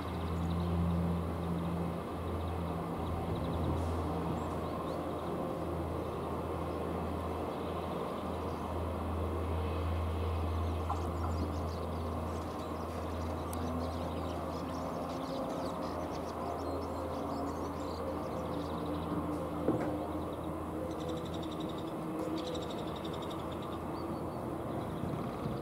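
A steady low engine hum that weakens about two-thirds of the way through, over outdoor background noise with a few faint bird chirps.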